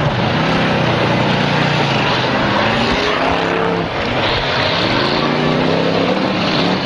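Several demolition derby cars' engines running loud and revving, their pitches rising and falling over one another.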